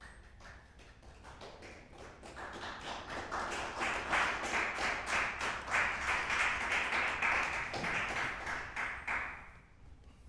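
Small audience clapping: a few scattered claps that swell into steady applause, then die away near the end.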